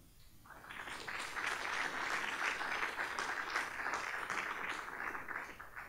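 Audience applauding, starting about half a second in and dying down toward the end.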